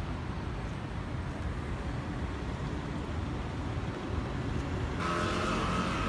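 Steady city road-traffic noise, a deep rumble of cars on the street. About five seconds in, the sound turns abruptly brighter, with pitched tones over the traffic.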